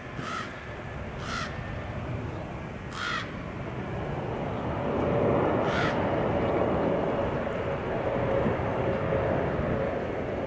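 Jet engines of a Boeing 777 airliner on landing approach, a rumble that grows louder with a steady whine joining about halfway. Over it, birds give short harsh calls four times.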